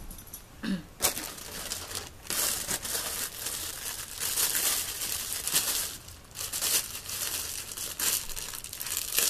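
Clear plastic packaging bag crinkling and rustling as it is handled, starting about a second in and going on in busy, crackly bursts with brief lulls.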